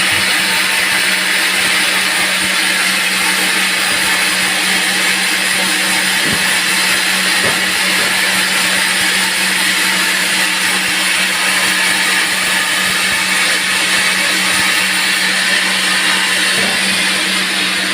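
Band sawmill running and cutting a teak log: a loud, steady saw noise over a constant low motor hum.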